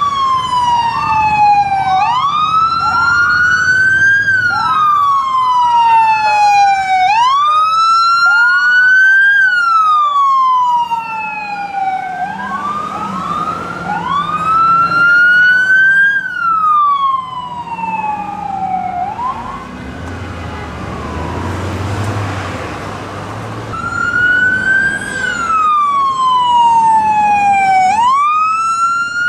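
Several police car sirens wailing at once, their slow rising and falling tones overlapping. Two-thirds of the way through, the sirens drop away for a few seconds while a rush of passing traffic noise swells, then one wail starts up again.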